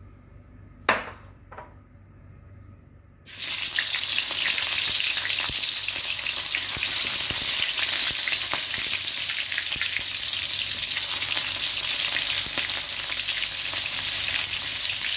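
A sharp knock about a second in and a softer one just after, then lemongrass stalks hit hot rendered fish fat in a wok and start sizzling loudly about three seconds in, frying steadily as they are stirred with a wooden spatula.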